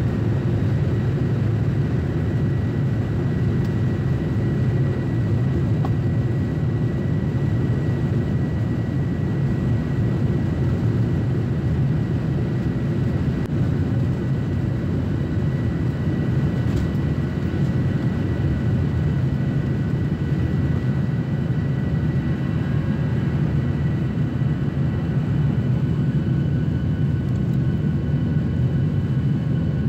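Boeing 737-800's CFM56 jet engines at takeoff thrust, heard inside the passenger cabin: a steady loud rumble with thin high whining tones over it, through the takeoff roll and climb-out.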